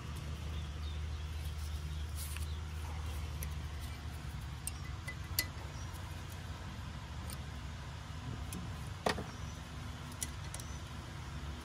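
Small metal hand tools, a pick and then pliers, clicking and clinking against the front wheel hub's nut, with two sharper clicks about five and nine seconds in. A steady low hum runs underneath.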